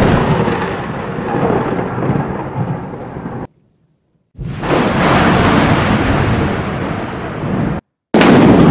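Thunder sound effect: a sharp crack of thunder rolls into a heavy rumble that cuts off abruptly after about three and a half seconds. After a second of silence a second rumble swells in and stops dead near the end, and a fresh loud crack of thunder begins right after.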